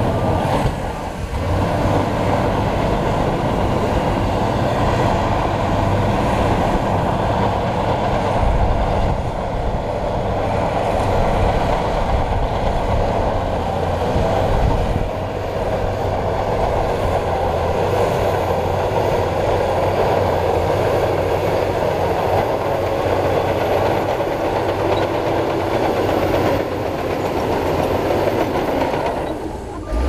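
Shantui crawler bulldozer's diesel engine running steadily under load, with the clatter of its steel tracks as it pushes and levels soil and stone.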